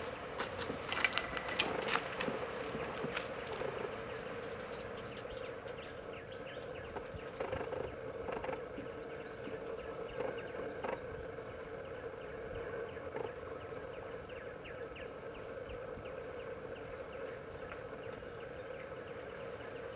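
Spot-billed pelicans splashing down onto open water, a quick run of splashes and wing flaps in the first few seconds, over a steady wetland background of insect-like drone and faint high chirping that carries on as the birds sit on the water.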